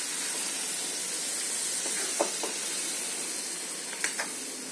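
Chicken and gongura curry sizzling in a hot pan with a steady hiss that slowly fades, with a few light utensil taps about halfway and near the end.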